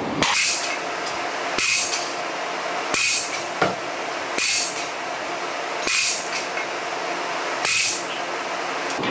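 Loaded Olympic barbell being deadlifted for repetitions, its plates clanking and rattling about every one and a half seconds over a steady gym background hum.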